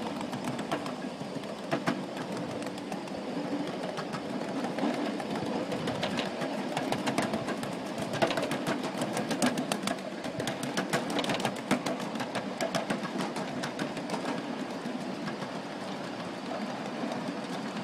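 Ride-on miniature live-steam railway train rolling along its ground-level track: a steady rumble with many quick, irregular clicks from the wheels running over the rail.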